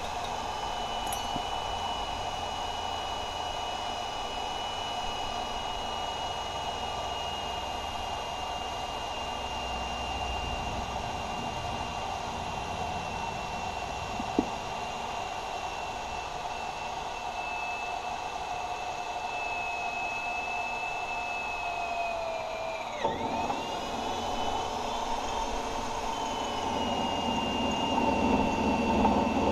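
Hand-held electric drill boring into steel. Its motor whine sags slowly as it cuts, dips sharply about three quarters of the way through as the bit drags, then picks up again. The drilling is going hard.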